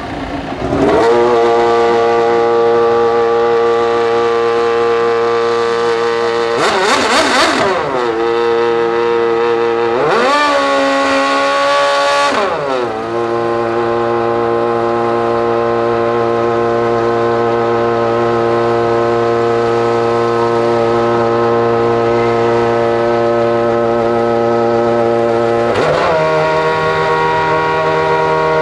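Honda RA108 Formula One car's 2.4-litre V8 idling steadily, its throttle blipped in a quick rev about seven seconds in and held at higher revs for a couple of seconds around the eleven-second mark before dropping back to idle.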